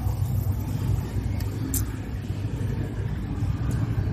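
A small engine running steadily at idle, a low even hum, with a couple of light clicks about a second and a half in.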